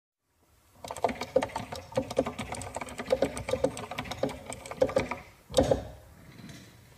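Rapid, irregular mechanical clicking, several clicks a second, from camera shutters firing at the still performers, with a louder knock about five and a half seconds in before the clicking dies away.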